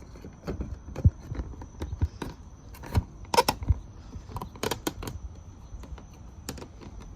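Irregular plastic clicks and knocks as a tail light housing is pushed and worked into place in a C6 Corvette's rear body.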